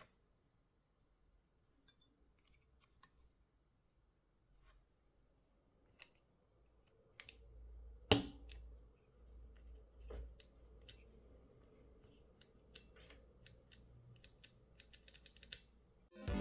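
Small sharp plastic clicks and snaps of Kailh Choc low-profile keyboard switches and keycaps being pulled from and pressed into hot-swap sockets, with some handling rumble. The clicks come sparsely at first, with one loud snap about eight seconds in, then a quicker run of clicks over the last few seconds.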